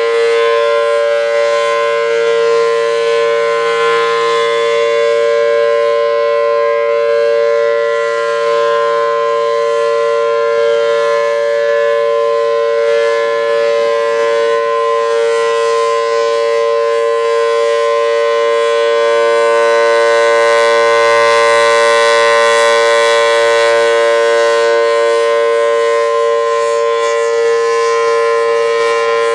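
Federal Signal Thunderbolt 1000T outdoor warning siren with a 4/5-port rotor, sounding a steady tone at full speed as a two-tone chord. It swells somewhat louder about twenty seconds in.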